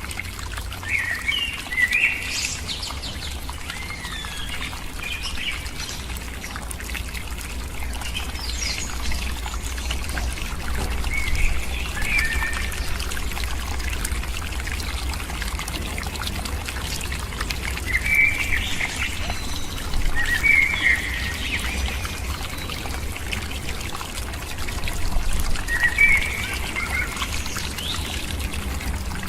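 A bird calling in short clusters of chirps every few seconds, over a steady low rumble and an even background hiss.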